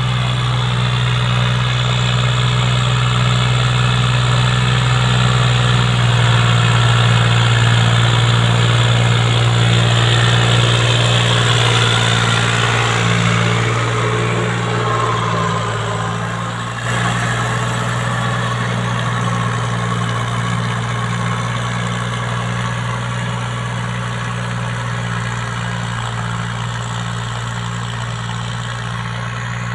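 Tractor diesel engine running steadily under load while it drives a rotary tiller through the soil. The engine note shifts abruptly a little past halfway.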